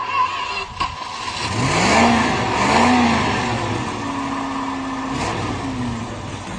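A vehicle engine, most likely the van's, revved up and down twice, then held at high revs and let fall, with a rushing hiss over it.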